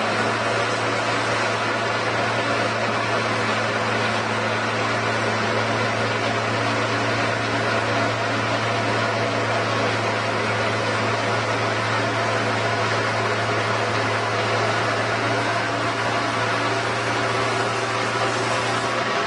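A machine running at a constant pitch: a steady low hum under an even noise that does not change.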